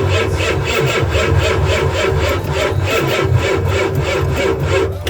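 Ford E350 diesel V8 being cranked over by its starter in a fast, even rhythm without catching, then cut off abruptly near the end. The battery is too low to give it enough power to start.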